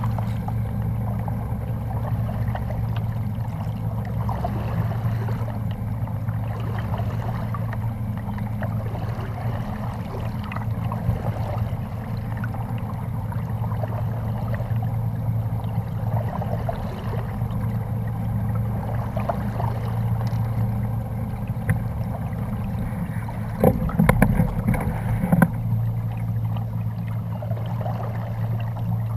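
Choppy water sloshing and lapping against a plastic fishing kayak's hull, over a steady low hum. Near the end comes a short cluster of louder knocks and thuds.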